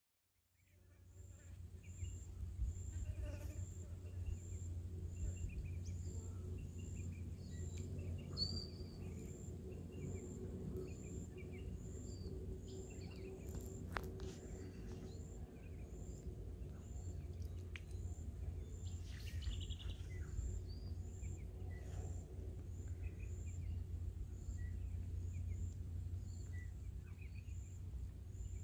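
Outdoor ambience at the water's edge: birds chirping here and there over a steady low rumble. A high chirp repeats evenly about twice a second, and there is a single sharp click about halfway through.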